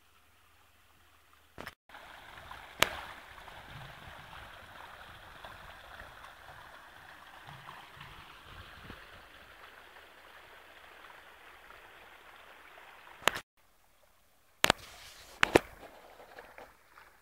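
Water running and trickling over stones in a small garden stream, an even rushing sound that starts about two seconds in and stops abruptly about three-quarters of the way through. A few sharp clicks stand out above it, the loudest just after it starts and others near the end.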